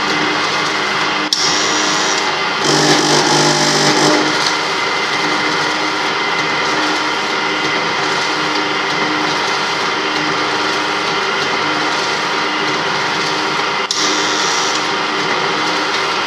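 Food packaging machine running steadily, with a sharp click about a second in and another near the end. Around three to four seconds in there is a louder, hissier stretch.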